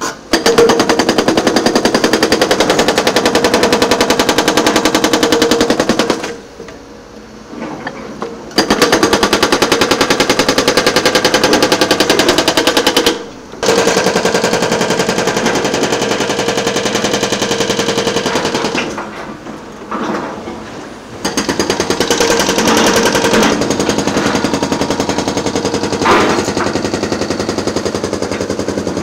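Excavator-mounted hydraulic breaker hammering, a fast even run of loud blows with a ringing tone. It stops and restarts three times as the chisel is reset.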